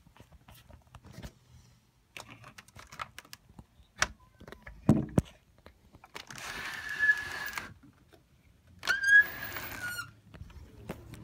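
Angry cats outside, two long bursts of hissing with a drawn-out yowling note in the second half. Before them, scattered clicks, a knock and a thump from the phone being handled against the window curtain.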